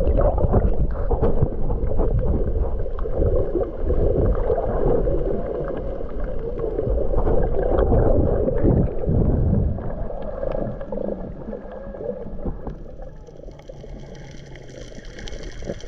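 Muffled underwater gurgling and rumble with many small clicks and pops, as heard through a camera's underwater housing. A faint steady high whine joins in near the end.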